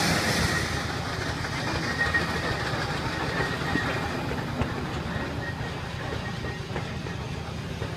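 Antique steam shovel working: its steam engine chuffing rapidly with machinery clattering, and a loud hiss of venting steam that fades out in the first second.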